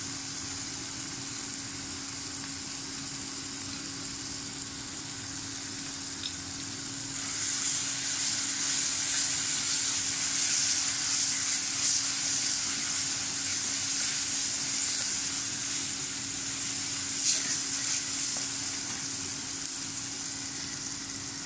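Onions and tomatoes frying in oil in a clay pot, sizzling steadily. From about seven seconds in, a wooden spatula stirs and scrapes the pot and the sizzle grows louder.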